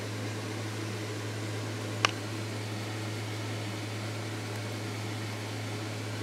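Steady low hum with an even hiss from a running appliance, and one sharp click about two seconds in.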